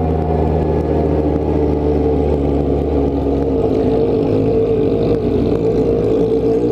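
Yamaha XJ6 motorcycle's inline-four engine idling steadily.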